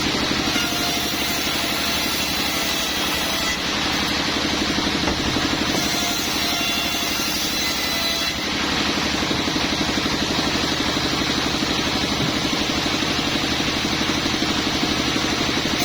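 Sawmill machinery running steadily: an engine drone with a fine regular pulse and a constant hiss over it.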